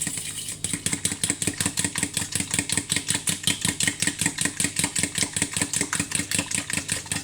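Mashed banana being stirred briskly into hot water in a saucepan: a utensil scraping and knocking against the pan in a fast, even rhythm of about five strokes a second.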